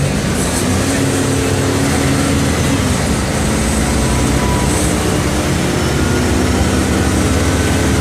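Mercedes-Benz OM 457 LA turbocharged six-cylinder inline diesel engine of an O-500MA articulated bus running at a steady, nearly even speed.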